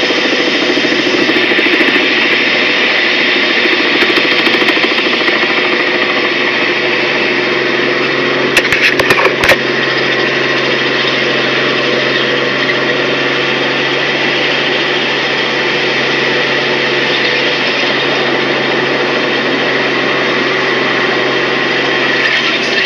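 Steady drone of a helicopter's engine and rotor heard from inside the cabin, with a brief cluster of sharp clicks about nine seconds in.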